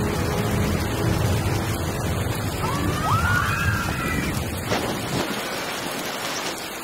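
Steady rush and splash of water along a log flume channel, with waterfalls pouring beside the boat. A few brief high gliding tones sound about three seconds in.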